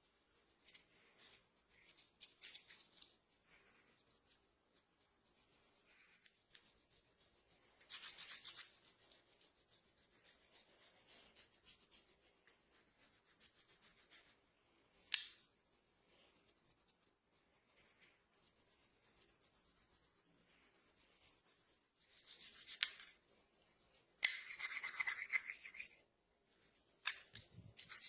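Hands rubbing and scratching through hair and over the scalp during a head massage, in short on-and-off strokes with a longer, louder stretch near the end. A single sharp click comes about halfway through.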